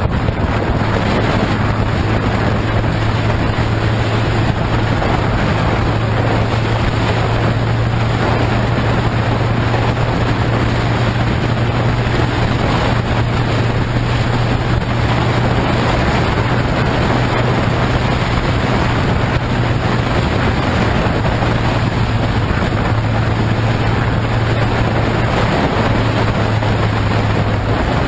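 Motorcycle riding at highway speed, heard from its onboard camera: a steady low engine drone under constant heavy wind noise on the microphone.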